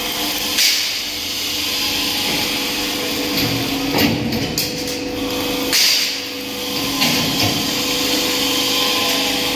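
Metal-fabrication workshop machinery running with a steady hum and hiss, broken by about four sharp metal knocks spread through.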